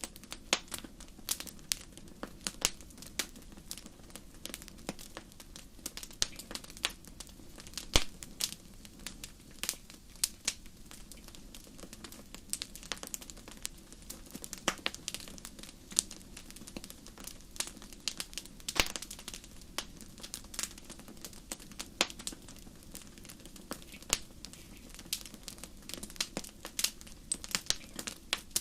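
Wood bonfire crackling: irregular sharp pops and snaps, several a second, over a steady low background.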